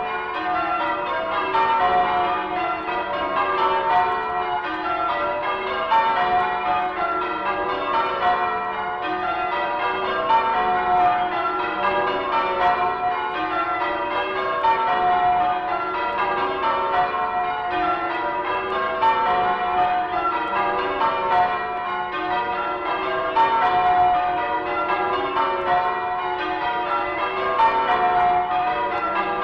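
A ring of church tower bells being rung in changes, in a continuous stream of strikes with one bell's note coming round about every two seconds, played back from a 1967 His Master's Voice sound-effects vinyl record.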